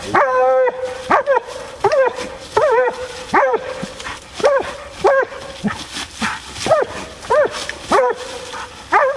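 Bluetick coonhound barking over and over, about three short barks every two seconds, each bark rising and falling in pitch.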